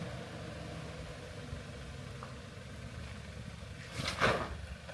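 Off-road 4x4's engine running low and steady at crawling speed. About four seconds in comes a short, loud rushing noise.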